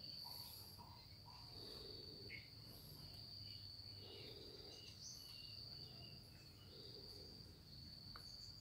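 Near silence: a faint, steady, high-pitched insect trill over quiet background murmur.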